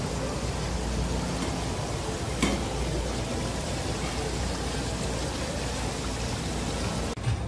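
Steady rushing hiss of water circulating in live seafood display tanks, with a single click about two and a half seconds in.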